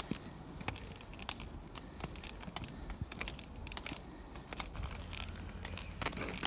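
Footsteps on a concrete sidewalk with light clicks and taps from handling a phone, over a steady low rumble of wind on the phone's microphone.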